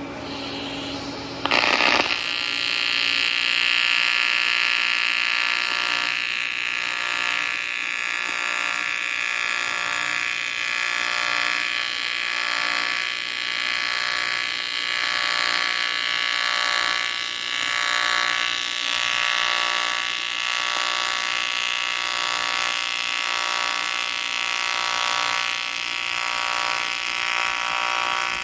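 AC TIG welding arc on a cast aluminum compressor housing: a steady electric buzz that strikes up suddenly about a second and a half in, then swells and dips regularly, roughly once a second.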